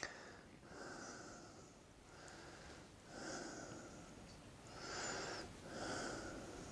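A man breathing heavily through his nose close to a clip-on microphone, a soft noisy breath roughly every second. A brief sharp click at the very start.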